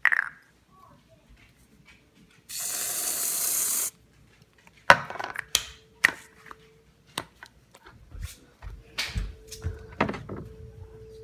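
Aerosol whipped-cream can spraying: a steady hiss lasting about a second and a half. It is followed by clicks and knocks as the can is handled, then knocks and rattles of a refrigerator door being opened near the end.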